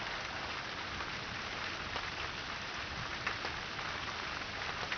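Steady rain falling, with a few single drops tapping close by.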